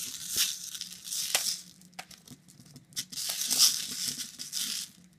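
Nerds candies rattling and swishing as a hand stirs them around a clear plastic bowl, in two bouts of hissy rustling with a few light clicks: one in the first second and a half and another from about three seconds in.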